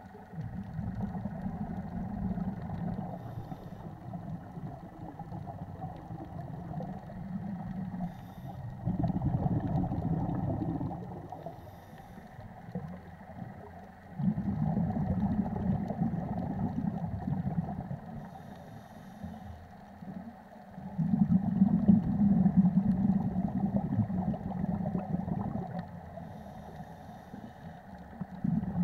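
Muffled underwater sound of scuba breathing through a regulator: a rumbling burst of exhaled bubbles every six seconds or so, each lasting two to four seconds, with short faint hisses between them.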